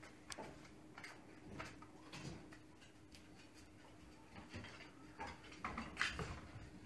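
A Great Pyrenees's claws clicking faintly and irregularly on a hard floor as the dog walks about, with a louder scuffling a little before the end as it lies down.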